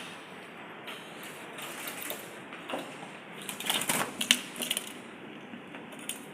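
Rattling and rustling clatter from a bird trap, with a flurry of sharp clicks about three and a half to five seconds in.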